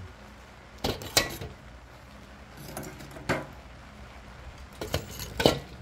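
Sticks of hardwood charcoal set one by one onto a kettle grill's wire grate, clinking against each other and the metal. There are about five separate knocks, the loudest near the end.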